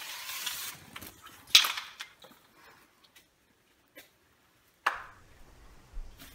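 Aerosol can of orange peel wall texture spraying with an uneven hiss that cuts off under a second in. Then come a few sharp knocks, the loudest about a second and a half in and another near five seconds.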